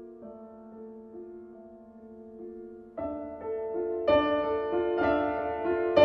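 Piano music: soft, gently repeated notes that swell about halfway through into louder, fuller chords reaching higher up the keyboard.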